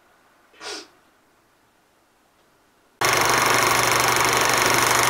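Old-film projector sound effect under a countdown leader: a loud, steady whirring noise with a low hum that starts suddenly about three seconds in. A short breathy puff comes about half a second in.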